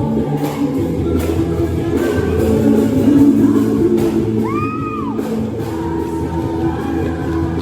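Upbeat worship song with singing and guitar, echoing in a large hall, with tambourine jingles struck in time over it. About four and a half seconds in, a short high sound rises and falls.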